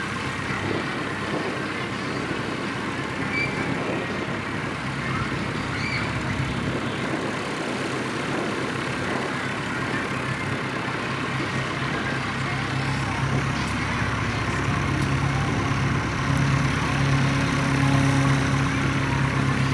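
Diamond DA40 Diamond Star's propeller engine at low power on landing approach, a steady hum that grows louder over the last several seconds as the plane comes close and touches down.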